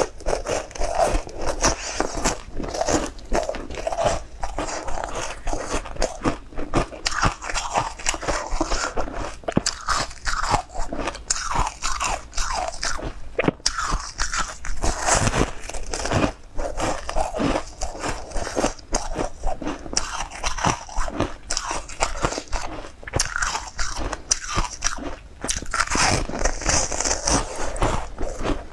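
Crunching and chewing of a hard, frosty blue piece of food, bitten into again and again, close to a clip-on microphone.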